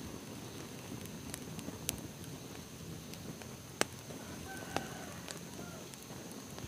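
A small open fire of dry twigs and grass burning with a low crackle and a few sharp pops, the loudest nearly four seconds in.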